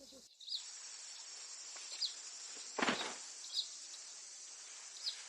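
Outdoor ambience of insects buzzing steadily at a high pitch, with a short high chirp about every second and a half and one louder rustling noise near the middle.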